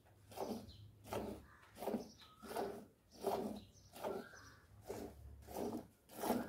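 Milk squirting from a cow's teat into a steel bucket of foamy milk under hand milking. A rhythmic swish with each squeeze, about one and a half strokes a second.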